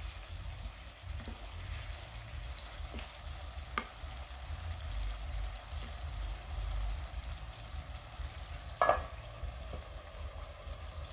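Vegetables sizzling in a metal frying pan over a charcoal stove while a wooden spatula stirs and scrapes them, with a few light knocks. Near the end a sharp metal clank rings out as the steel lid goes onto the pan.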